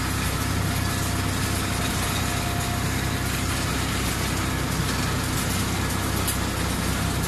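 Small rack-rail monorail car's drive unit running steadily as the car travels along its steel rail: a constant low hum with a few steady tones.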